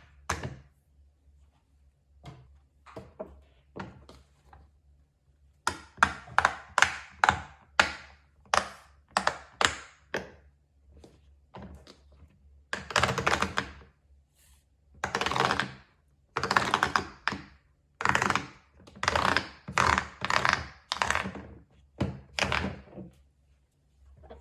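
Fidget toys being handled and set down: a run of sharp clicks and thunks, quickening about six seconds in, then a series of longer noisy strokes of about a second each.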